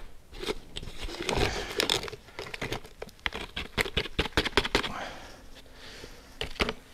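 Handling noises: a scattered run of small clicks, taps and rustles as a plastic jar and its screw lid are handled and set down on a wooden table, with shuffling steps on a concrete floor.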